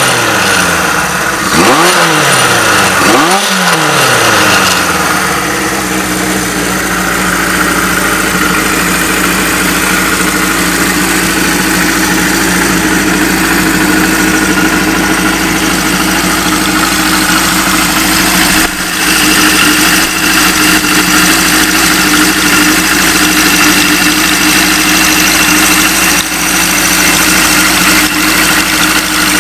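Kawasaki 750RS (Z2) air-cooled inline-four running through a period Yoshimura muffler. It takes two quick throttle blips in the first few seconds, each rising and falling in pitch, then settles into a steady idle.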